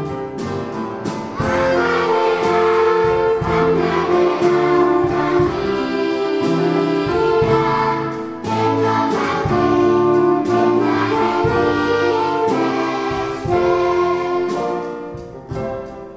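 Children's choir singing a Christmas song with instrumental accompaniment. The sound dips in level near the end.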